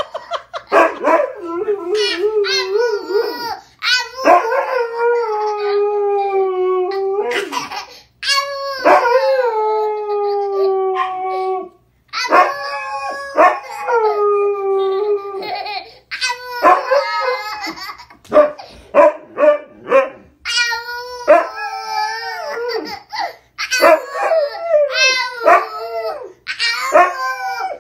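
A husky howling and 'talking' in a run of long, wavering howls that slide down in pitch, broken up by shorter yips and yowls, trading back and forth with a toddler who yells and babbles back at it.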